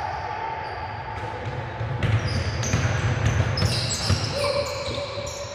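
Basketball bouncing on a gym court during play, with sneakers squeaking; the bounces and squeaks come thickest from about two seconds in.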